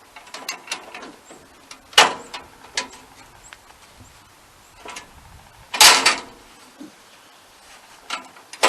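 Sawmill band blade being fitted onto the blade wheels: a few separate metallic clanks and clicks with quiet between, the loudest a quick cluster about two-thirds of the way through.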